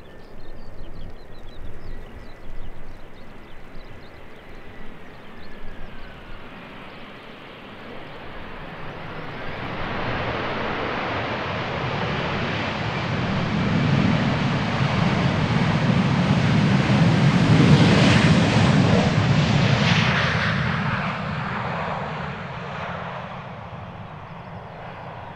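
Jet airliner passing close by: engine noise swells over several seconds, is loudest a little past the middle, then fades away.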